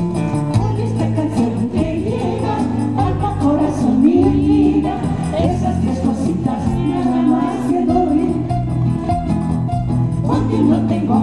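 A woman singing a song into a microphone, accompanied by acoustic guitar.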